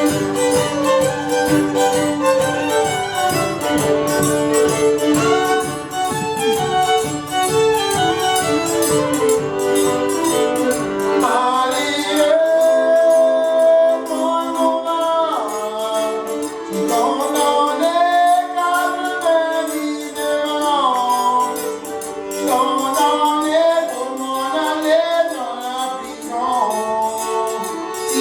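Live Cajun string-band music led by fiddle, over a bass and strummed rhythm. About twelve seconds in the bass and rhythm drop out, leaving the higher melody lines to carry on alone.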